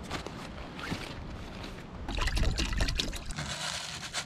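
Nylon stuff sack rustling, then a food packet's contents pouring into a steel cook pot, a dense pattering that starts about halfway through.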